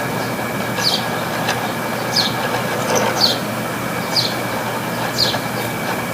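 Failing room air conditioner running with a steady mechanical whir and faint steady tones, broken by a short high chirp about once a second. The unit's compressor is in overload and its fan blades are sloshing.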